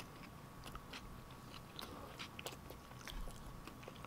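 Faint, close-up chewing of a mouthful of sloppy joe: scattered soft mouth clicks.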